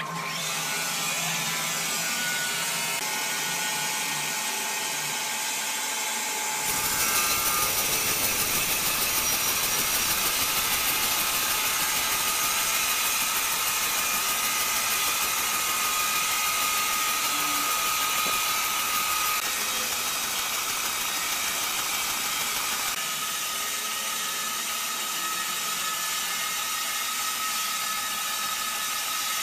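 Large horizontal band sawmill running through a big block of timber: a steady, dense hiss with a thin whine. It becomes louder and fuller about seven seconds in.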